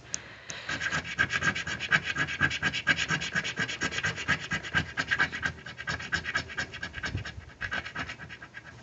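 A coin scraping the silver coating off a paper scratch-off lottery ticket in rapid back-and-forth strokes, many a second, which thin out and fade near the end.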